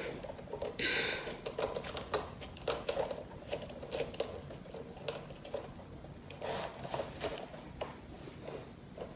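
Scattered light clicks and taps of plastic ring-light parts being handled and fitted together, with a short rustle about a second in.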